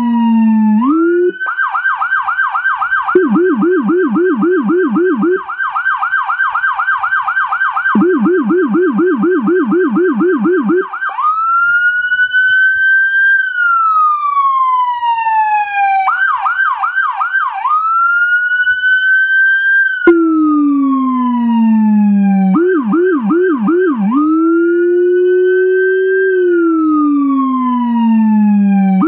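Whelen Carbide electronic siren on an emergency vehicle cycling through its tones. A wail falls away at the start, then a fast yelp of about three to four sweeps a second runs for about ten seconds. After that, slow rising and falling wails alternate with short yelp bursts (the Wail Yelp tone). In some stretches, including near the end, the Howler low-frequency siren speaker adds a deep copy of the same sweep under the main tone.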